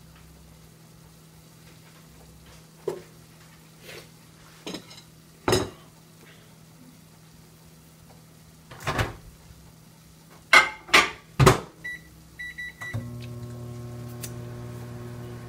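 Kitchen knocks and clatter, ending in three loud knocks in quick succession, then several short keypad beeps and a microwave oven starting up with a steady hum near the end.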